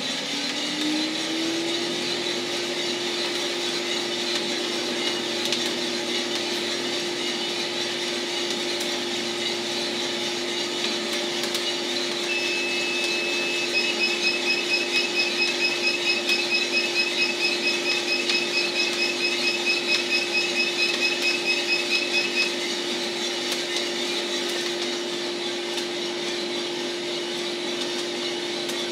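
A 1 kg Mill City coffee roaster running mid-roast: a steady mechanical hum with a tone that rises over the first two seconds and then holds. About halfway through, a rapid high-pitched beeping starts and runs for about ten seconds.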